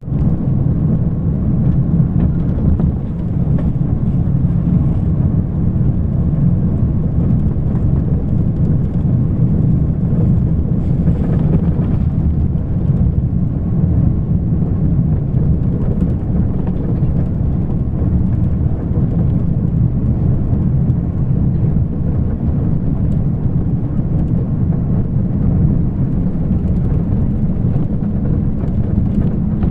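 Steady low rumble of a moving vehicle, road and wind noise heard from inside it as it drives along.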